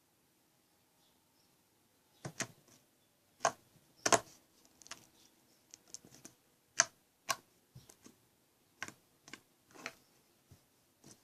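A long irregular series of short, sharp clicks and taps, starting about two seconds in.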